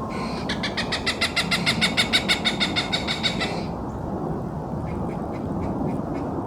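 Cooper's hawk giving its cackling kak-kak-kak call: a fast run of about seven harsh notes a second for about three seconds, then fainter, slower single notes near the end.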